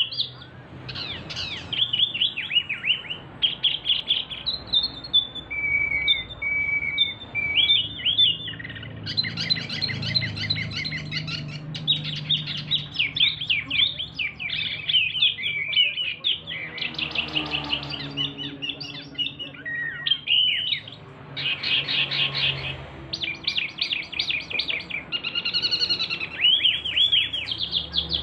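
A male Javan wambi mini, a small caged songbird, in full song with a loud voice: fast, varied chattering phrases of high chirps and trills with only short pauses, and a few short steady whistled notes.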